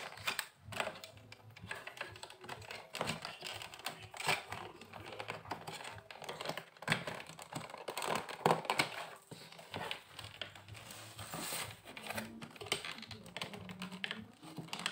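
Irregular small clicks and taps of plastic parts and wires being handled as they are fitted back into the open plastic housing of a Philips hand mixer.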